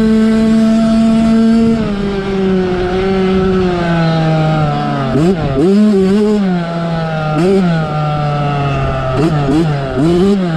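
Yamaha YZ65 65cc two-stroke single-cylinder engine, heard close from on the bike, running hard at high revs. Its note drops about two seconds in and sinks slowly, then the revs rise and fall quickly several times in the second half as the throttle is worked.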